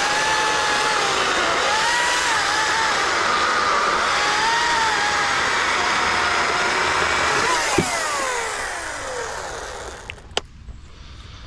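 Ryobi 40-volt 12-inch battery chainsaw running and cutting through a thick branch, its electric motor whine wavering in pitch as it loads in the wood. Near eight seconds there is a sharp knock, then the motor winds down with a falling pitch, followed by a few light knocks.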